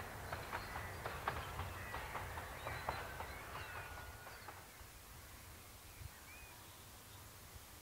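Countryside ambience: birds chirping and calling over a low rumble, fading down to a faint background about halfway through.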